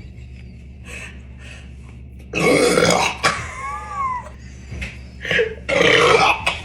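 A person burping loudly after gulping carbonated Sprite: two long burps, one about two and a half seconds in and one near the end, with smaller noises between.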